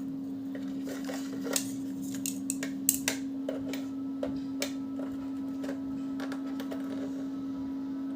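Light irregular clicks and taps of a tester screwdriver's metal tip and plastic body against switchboard sockets and switch plates, the sharpest near the middle, over a steady low electrical hum.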